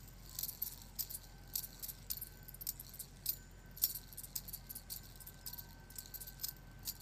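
Small aluminium fidget spinner spinning on the fingertips as it is handled, giving irregular light clicks and ticks several times a second over a faint steady high tone.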